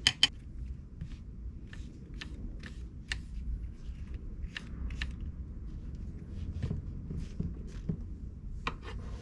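Kitchen knife dicing chicken of the woods mushroom on a wooden cutting board: irregular short taps of the blade, about a dozen, following a sharper double clack at the start.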